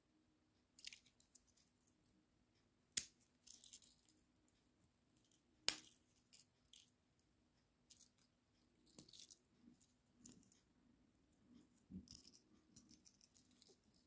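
Small red multitools, a Victorinox Classic pocket knife and an imitation of it, having their tiny scissors and nail-file tools folded and opened: sharp metallic snaps as the spring-backed tools click shut or open, with softer clicks and scrapes between. The two loudest snaps come about three and six seconds in.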